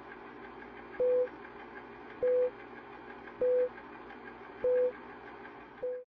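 Film-leader countdown sound effect: short beeps at one steady pitch, about one every 1.2 seconds, five in all with the last cut short, over a steady background noise.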